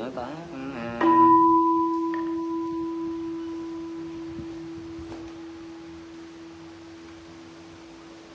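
A Buddhist bowl bell is struck once and rings with a clear, steady tone that slowly fades. It follows the chanted name of a Buddha in the bowing ceremony, marking the bow.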